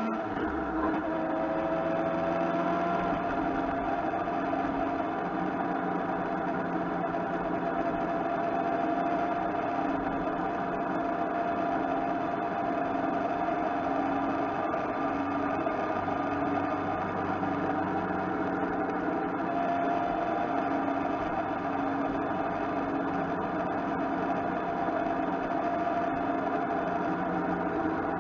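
Motorcycle engine running at a steady cruise, its note settling after a short rise in pitch near the start, with wind and road noise around the bike.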